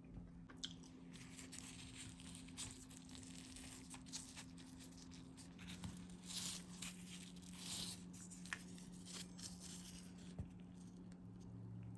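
Faint, irregular rustling and crunching with a few louder crackles about halfway through, over a low steady hum.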